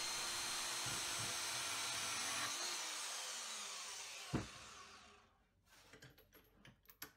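Vevor portable metal-cutting bandsaw running at speed 3, finishing a cut through 3 mm mild steel angle. About two and a half seconds in it is switched off and the motor winds down with falling pitch. A single knock as the saw is set down on the bench, then a few light clicks.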